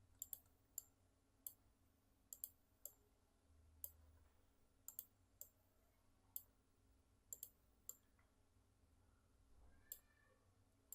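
Computer mouse clicking, a scattered string of short, sharp clicks, several in quick pairs, with near silence between them.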